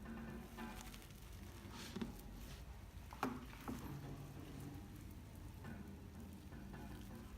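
Crunchy, bubbly slime being squeezed and pressed by hand: a faint crackling, squishy texture with a few sharper pops about two seconds in and again a little past three seconds.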